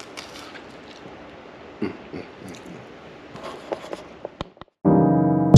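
Faint clicking and scraping handling sounds, ending in two sharp clicks and a brief dead silence. Then loud music with a beat and sustained notes starts abruptly near the end.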